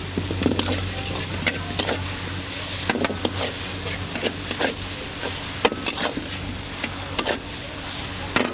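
Char kway teow being stir-fried in a wok: a steady sizzle broken by irregular clanks and scrapes of the metal spatula against the wok, over a steady low hum.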